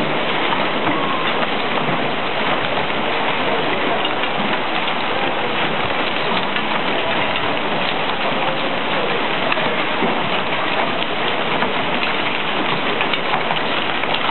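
Hail mixed with rain pelting a street and parked cars: a dense, steady hiss made of countless small impacts.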